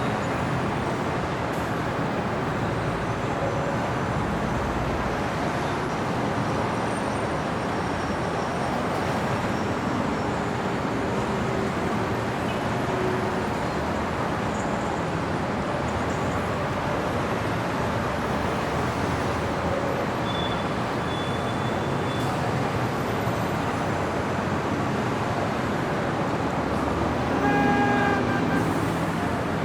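Steady city street traffic noise, a continuous wash of passing cars. A vehicle horn sounds once briefly near the end.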